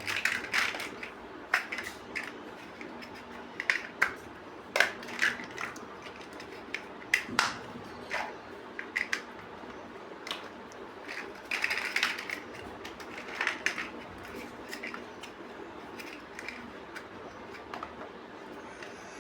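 Plastic building bricks being handled: irregular sharp clicks and brief rattles as pieces are picked up and pressed together.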